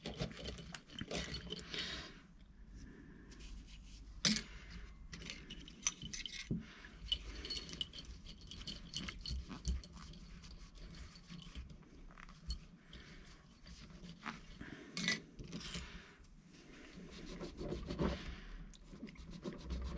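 Small metal brake caliper hardware (Brembo pad clips and pins) clinking and jangling together while being rubbed clean inside a cloth towel, with the towel rustling. Irregular light metal clicks come and go throughout.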